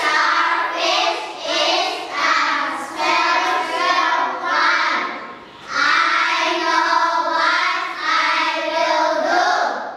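A group of young children singing a song together, in two lines with a short break about five seconds in.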